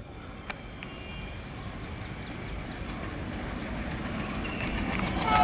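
Indian Railways ALCO diesel locomotive approaching, its engine rumble growing steadily louder as it nears. Near the end its horn starts to sound.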